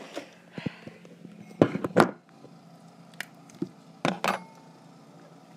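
Handling noise: a few sharp knocks and clatters of hard objects being moved about on a table, the loudest pair about two seconds in and another cluster a couple of seconds later.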